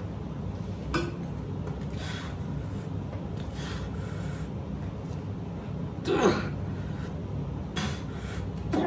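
A man breathing hard while doing dumbbell wrist curls: sharp breaths and exhales every second or two, with a strained grunt falling in pitch about six seconds in and another near the end. A steady low hum runs underneath.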